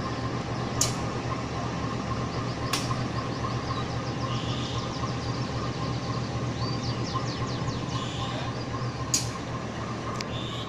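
Diesel-electric CC 201 locomotive idling with a steady low engine hum. A few sharp clicks and faint short high chirps sound over it.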